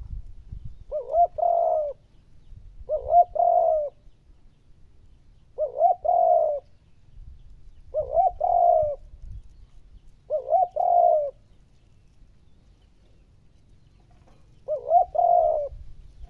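Spotted dove cooing: six phrases, each about a second long, a few quick rising notes running into a longer held note, with a longer pause before the last phrase.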